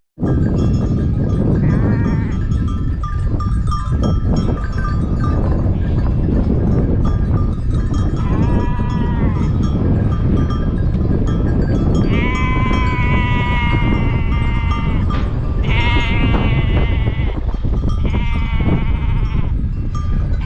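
Sheep bleating: four long, wavering calls from about the middle on, over a steady low rumble.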